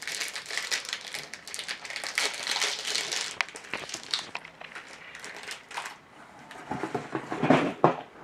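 Foil inner pouch of a strawberry Pocky pack crinkling as it is pulled open and handled, a dense crackling rustle that thins out about four seconds in, with a few louder rustles near the end.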